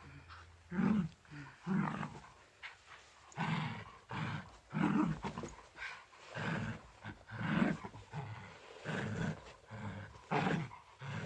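Dog growling in short, repeated bursts, about ten in all: a playful mock attack.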